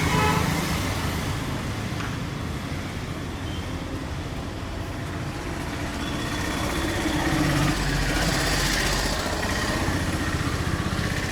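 Street traffic: motorcycle and car engines running and passing, a steady hum of roadside noise.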